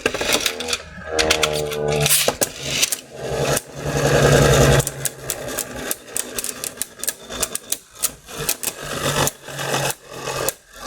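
Beyblade Burst spinning tops whirring and clacking against each other in a plastic stadium: a steady whir under rapid clicking hits, loudest around the middle.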